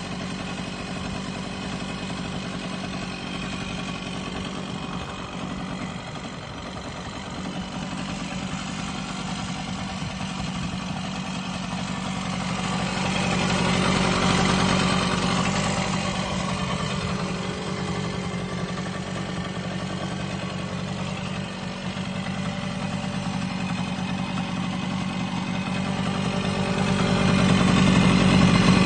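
Yamaha 125 Tri-Moto three-wheeler's engine idling steadily, with no revving. It grows louder around the middle and again near the end.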